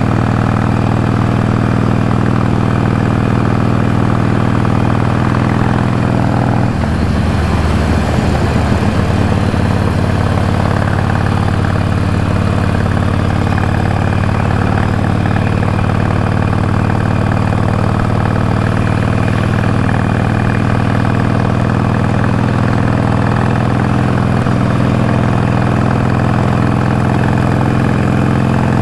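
Harley-Davidson Iron 883's air-cooled V-twin engine running steadily. Its note shifts about seven seconds in and then settles again.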